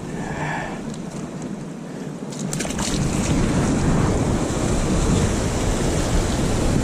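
Sea swell washing against shoreline rocks, with wind buffeting the microphone; the wash grows louder a little before halfway through. A few sharp clicks come about a third of the way in.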